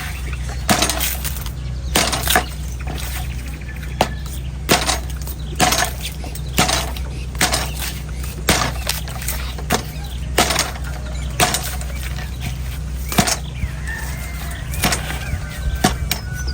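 Sharp knife chopping into the dry, hard husk of an old coconut, a sharp chop about once a second at an uneven pace. A steady low hum runs underneath.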